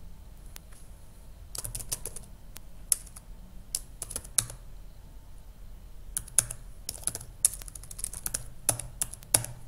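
Typing on a computer keyboard: irregular runs of keystrokes with short pauses between them, entering a terminal command.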